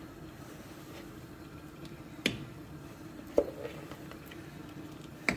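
Three short, sharp utensil taps, about a second apart, over a faint steady hum.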